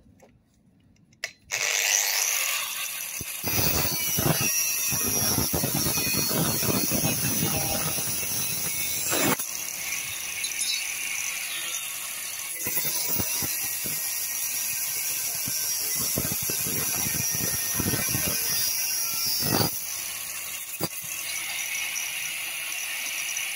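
Angle grinder switched on about a second and a half in and running with a steady high whine, its disc cutting through a metal letterbox flap with a rougher grinding that comes and goes.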